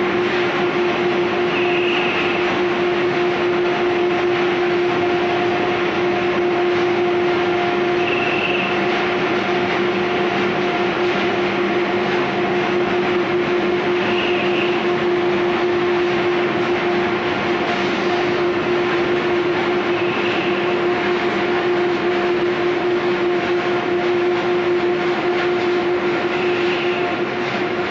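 Paperboard gantry stacker and conveyor line running with a steady machine hum. A short, higher sound recurs about every six seconds.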